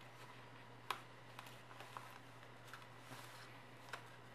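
Sheet of origami paper being folded and creased by hand: faint crinkles and small taps, with a sharper click about a second in and a soft rustle near three seconds. A low steady hum lies underneath.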